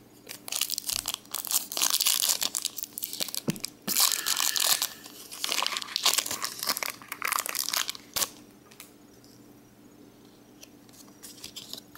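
Wrapper of a Pokémon Trading Card Game booster pack crinkling and tearing as it is opened, stopping about eight seconds in.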